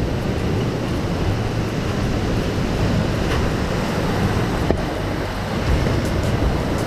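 Heavily running water rushing steadily.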